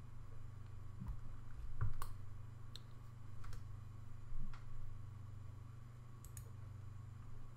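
A handful of sharp, separate clicks at uneven intervals from controls being worked while steering the telescope's tracking by joystick, over a steady low hum.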